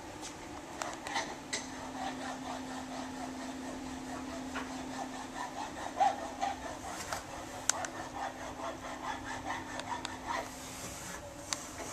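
Rubbing and scattered light knocks of a camera being handled and moved around, with a steady low hum that starts about a second in and stops near the end.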